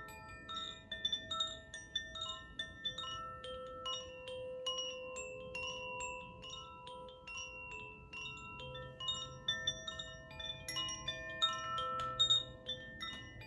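Koshi chimes being swayed: their tuned rods are struck in quick, irregular succession, and several bell-like notes ring on and overlap. The strongest strikes come near the end.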